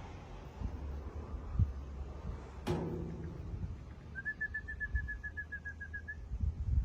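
A bird trilling: a run of about eighteen quick, evenly spaced notes on one pitch, lasting about two seconds, starting past the middle. Earlier, a single sharp knock with a short ringing tail is the loudest sound, over a low rumble of wind and handling noise.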